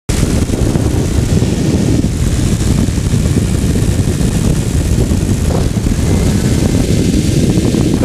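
Strong wind rumbling and buffeting over the microphone of a camera in flight, in winds of about 30 knots; a steady, loud, low rush with no clear engine tone.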